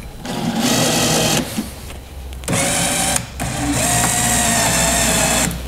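Power drill boring a pilot hole with a small bit into a white particleboard bed panel. It runs in three spurts: one of about a second, then a longer run from about two and a half seconds in, broken once by a short pause.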